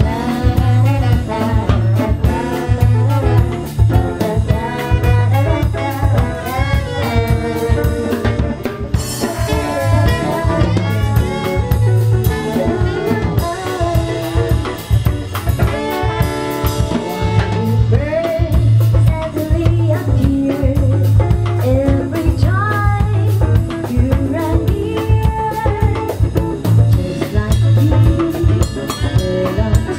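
Live band playing loud, a woman singing lead into a microphone over a drum kit and electric guitars, with a steady driving beat.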